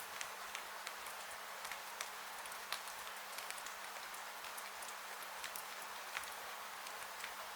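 Steady hiss of rain with irregular sharp crackles and pops of a wood fire burning in a fireplace, several a second.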